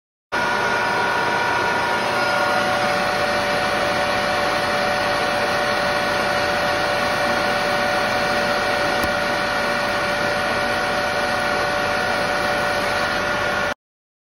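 Metal lathe running while turning a metal bushing: a steady mechanical whine made of several fixed tones over a hiss, starting abruptly just after the start and cutting off suddenly near the end.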